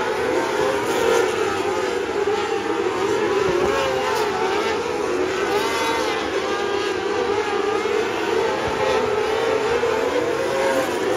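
Several winged micro sprint cars running laps on a dirt oval, their high-revving engines rising and falling in pitch together as they accelerate out of the corners and lift off going in.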